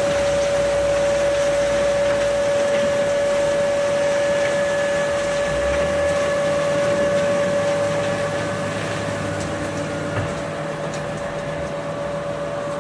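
JS1000 twin-shaft concrete mixer of a batching plant running, with a steady high whine over the rushing noise of its load pouring into a dump truck bed. The sound is slightly fainter in the last few seconds.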